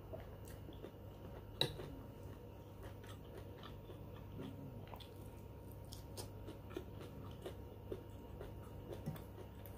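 Eating sounds: soft chewing and scattered light clicks of a metal spoon against a ceramic soup bowl, the sharpest about one and a half seconds in.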